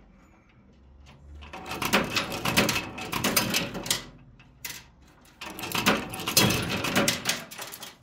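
Metal coins clattering and clinking inside a coin-pusher arcade machine as a dropped coin lands on the moving shelves of piled coins. There are two spells of dense clatter, one about a second and a half in and another about five and a half seconds in.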